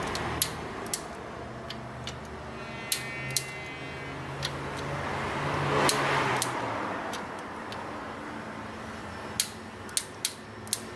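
Torque wrench clicking now and then as the cam-cover bolts of a VW EA111 engine are torqued to 6 N·m in sequence: about nine short, sharp clicks at uneven intervals over a low steady hum.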